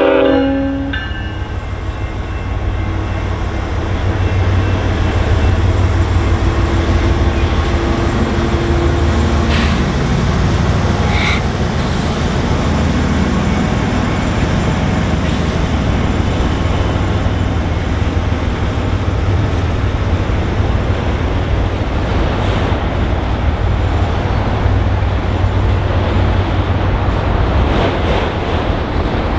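Union Pacific diesel locomotive passing close by, the end of its horn blast cutting off just after the start, its engine drone loudest a few seconds in. It is followed by the steady rolling rumble of autorack cars going past on the rails.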